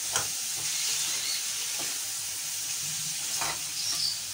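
Chicken pieces sizzling in hot oil in a pan as they brown, with a few scrapes as they are stirred.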